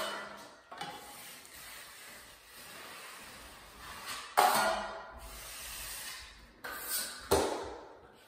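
A steel taping knife scraping drywall joint compound against a metal mud pan and across the wall. It makes several separate scrapes, each starting sharply and fading, the loudest about four seconds in.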